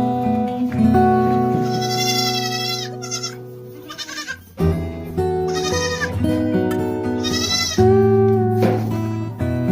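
Goats bleating, three long wavering bleats over acoustic guitar music.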